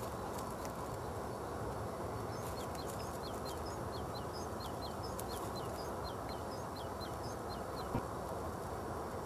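A dog's paws on thin pond ice, the ice answering with many short, high, descending chirps, several a second through the middle stretch, over a steady background hiss. A single brief knock sounds near the end.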